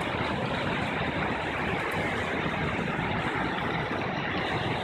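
Floodwater rushing and churning through a concrete creek channel, a steady noise without breaks.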